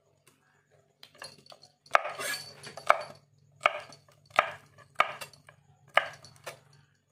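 Knife chopping morning glory (water spinach) on a cutting board. There are single separate strokes about every half second to second from about a second in, with a quicker cluster around two seconds.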